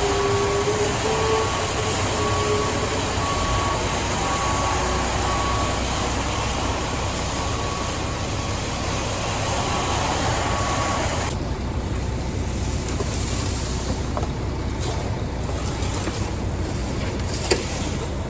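Heavy vehicle engine running, with a backup alarm beeping in short repeated tones. About eleven seconds in, the loud hiss suddenly drops away and a lower engine rumble is left.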